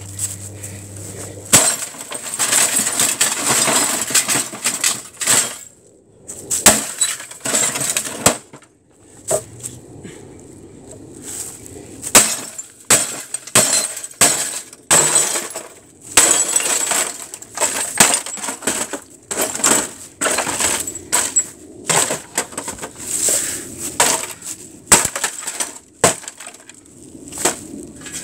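A CRT television being smashed: many sharp hits on its glass and casing, with shards of broken glass clinking and scattering between the blows.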